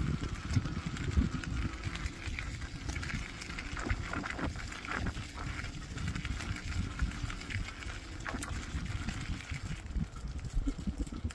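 Wind rumbling on the microphone and tyres rolling over a dirt path during a bike ride, with a dog panting close by.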